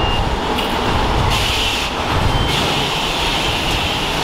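Steady rushing hiss of high-pressure water spray at a self-serve car wash, with the hiss strengthening about a second and a half in and again halfway through.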